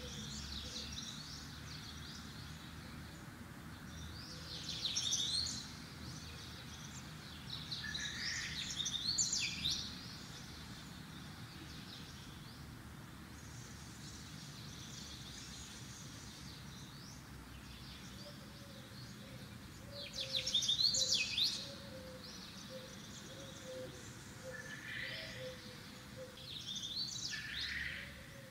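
Birds chirping in several short bursts a few seconds apart, over a faint steady background hiss.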